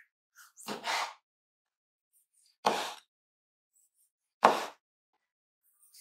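Kitchen knife slicing a tomato on a wooden cutting board: three separate cuts, each a short slice ending in a knock of the blade on the board, a little under two seconds apart.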